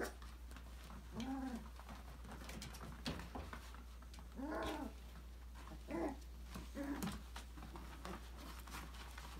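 Five-week-old Australian labradoodle puppies yipping and whining at play: a few short calls, each rising and falling in pitch, the loudest about halfway through, with faint clicks between.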